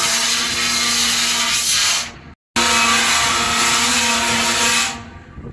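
Electric deck scaling machine running over a steel ship's deck: loud noise with a steady hum through it. It cuts out about two seconds in, starts again half a second later, and drops away near the end.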